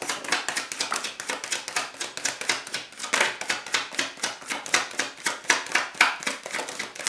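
A deck of tarot cards being shuffled by hand: rapid, irregular crisp clicks and slaps of cards against each other, several a second.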